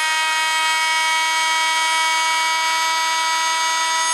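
Harbor Freight oscillating multi-tool running at full speed, a steady high-pitched whine held at one pitch.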